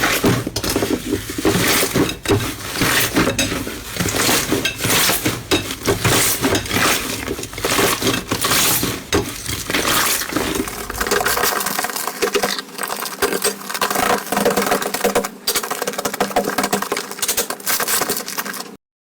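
Hands squeezing and poking slime, giving a dense run of quick sticky clicks and crackles. The sound cuts off suddenly near the end.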